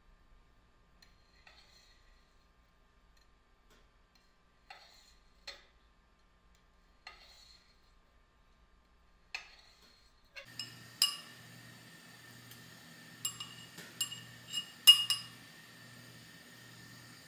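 Metal cooking utensils and dishes clinking. A few soft taps come first, then about ten seconds in a steady low hum starts, with several sharp, ringing clinks over it.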